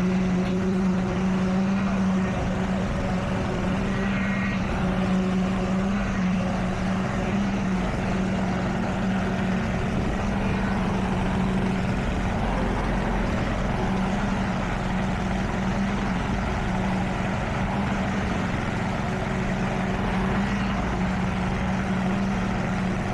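A motor running steadily at constant speed, with an unchanging low hum.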